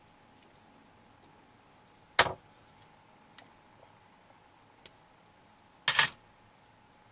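Small plastic RC-car gear housing and screwdriver being handled and worked apart: a few faint ticks, and two sharp clacks of hard plastic, one about two seconds in and a longer double clack near the end.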